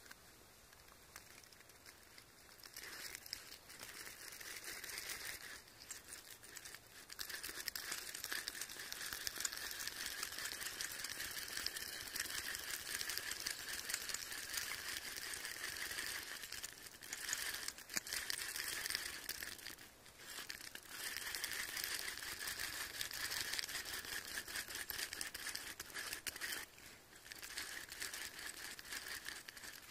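Plastic fidget spinner spinning in the hand, a faint, steady rattling whir that drops out briefly a few times.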